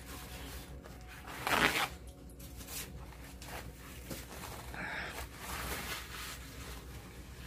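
Rustling of a paper tissue as it is handled and pressed to the face, with one short, louder rustle about a second and a half in and softer rustles after.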